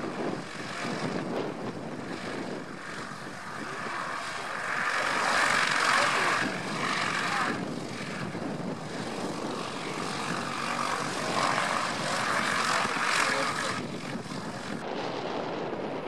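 Small four-cylinder engine and propeller of a high-wing WWII liaison light plane running at taxi power as it taxis. The sound swells about five seconds in and again from about eleven to fourteen seconds, then drops off shortly before the end.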